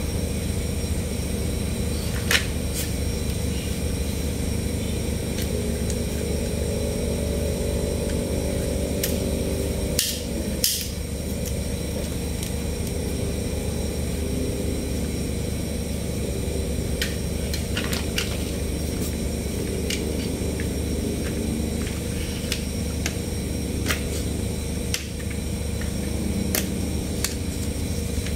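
Steady low background hum with scattered clicks and clacks of plastic toy trucks and a toy excavator being picked up and handled.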